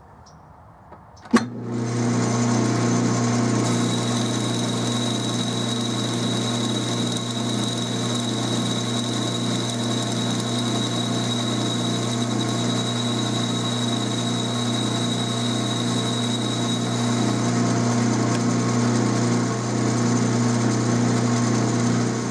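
12-inch Atlas lathe switched on with a click about a second in, then running steadily with a hum while a boring bar cuts the bore of a flexible shaft coupler, an interrupted cut across the coupler's flexure slots. A thin high whine rides over the run from about four seconds in until a few seconds before the end.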